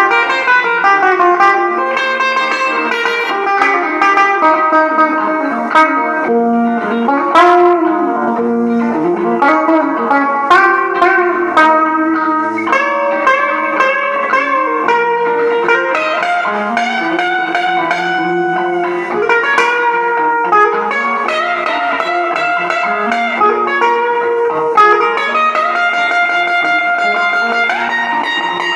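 Semi-hollow-body electric guitar playing an instrumental blues break: a continuous run of picked single-note lines and chords, with no singing.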